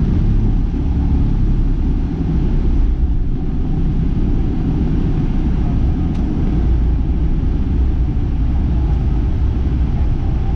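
Boeing 717 cabin noise during the takeoff run and lift-off: a loud, steady low rumble of its two rear-mounted Rolls-Royce BR715 turbofans at takeoff power, airflow and the runway, heard from inside the cabin.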